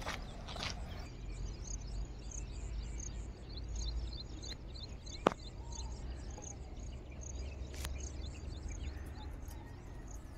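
Small birds chirping in rapid, high-pitched short notes, several a second, over a low rumble. A couple of footsteps on the dry sand at the start and a single sharp click about five seconds in.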